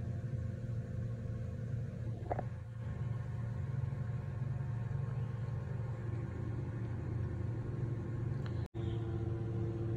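Steady low mechanical hum, like a motor or engine running, that holds the same few pitches throughout. A brief faint sound comes about two seconds in, and the audio cuts out for an instant near the end.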